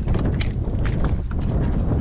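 Wind buffeting the microphone in a loud, rough rumble, with irregular short slaps of choppy water against a kayak's hull.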